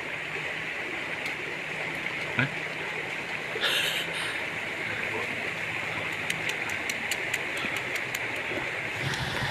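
Steady rush of a flowing stream, with a brief hiss about four seconds in and a run of light ticks, about five a second, between six and nine seconds in.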